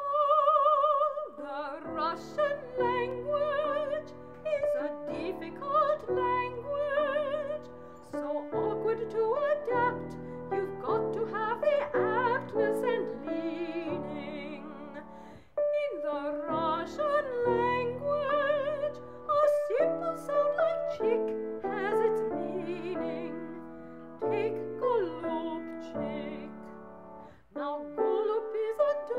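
An operatic voice singing with wide vibrato, accompanied by piano, in a theatre-cabaret song.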